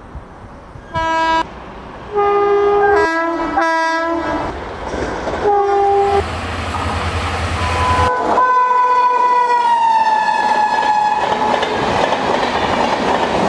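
Indian Railways locomotive horns: several short blasts of different pitches, then one long blast whose pitch drops about two seconds in as the train passes. The rush and clatter of a fast train on the track builds beneath it.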